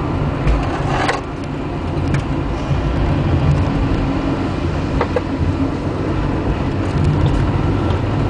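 Car engine and road noise heard from inside the cabin while driving at speed through bends, steady with a brief dip in level about a second in.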